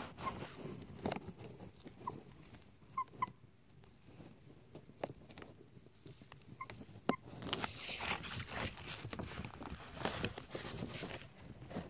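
Miniature Serama chickens in a bag of wood shavings: a few short, quiet chicken calls and soft scratchy clicks, then a longer spell of rustling shavings and plastic bag from about halfway through as the hens shift about.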